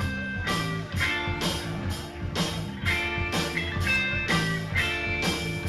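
A band playing rock music with guitar, to a steady beat of about two hits a second.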